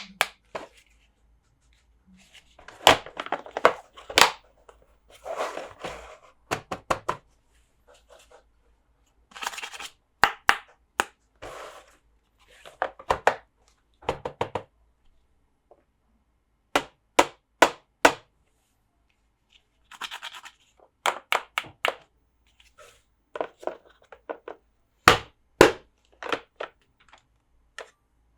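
Hard plastic toys being handled: irregular sharp clicks and knocks in clusters, with short scratchy rustles between them and brief silent gaps.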